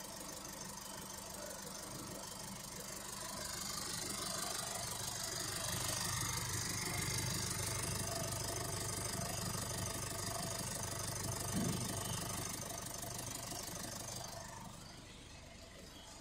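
Holden Colorado 2.8-litre four-cylinder turbo-diesel engine idling steadily. It grows louder for a while, then fades near the end, with a single short thump about two-thirds of the way in.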